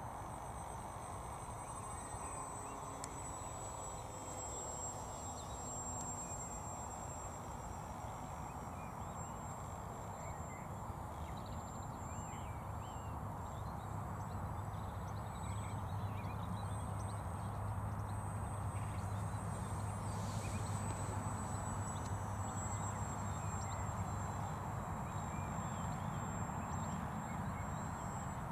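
Distant electric RC plane flying high: a thin, steady high whine that wavers slightly in pitch over a steady outdoor hiss, growing a little louder about halfway through.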